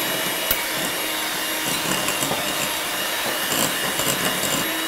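Electric hand mixer running steadily, its beaters churning creamed butter and sugar in a glass bowl as an egg is beaten in. A sharp click about half a second in.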